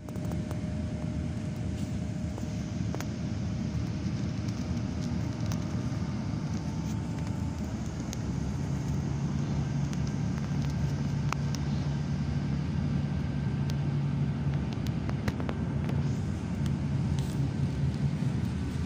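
Steady low rumble of tyre and engine noise heard inside a moving road vehicle. A low, even engine drone comes in about halfway through, with a few faint clicks and rattles.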